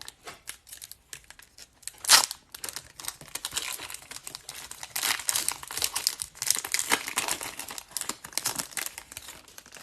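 A hockey trading-card pack's wrapper being torn open and crinkled, with a sharp tear about two seconds in and steady crackling after it.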